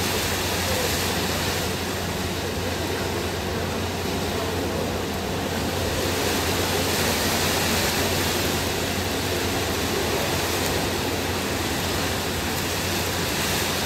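Tropical storm wind and rain as a steady rushing noise that swells slightly around the middle, heard from inside a car, with a constant low hum underneath.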